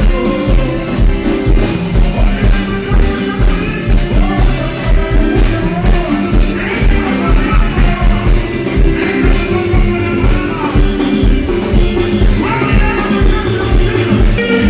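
Live Congolese ndombolo band music with a steady, heavy bass beat and voices singing, the singing strongest in the second half.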